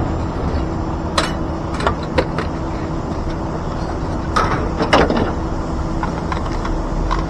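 A vehicle engine running steadily under several sharp metal clanks and bangs, about a second in and again around four to five seconds in: scrap metal being unloaded onto a scrap pile.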